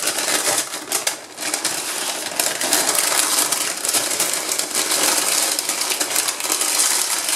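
Baking paper crinkling and rustling without a break as hands fold and twist it around a walnut-crusted slice of goat cheese, wrapping it into a candy-shaped parcel.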